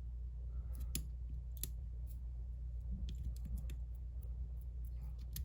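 Small, sharp metal clicks of a diamond pick and tension tool working the side pins inside a Bell bike lock's cylinder, a few ticks at irregular intervals over a steady low hum.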